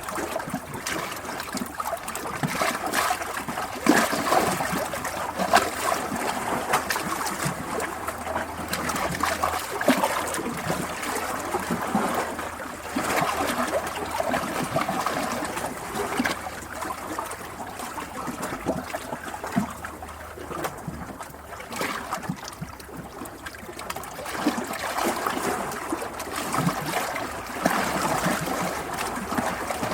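Running water trickling and splashing in a continuous, uneven babble, as of a small stream.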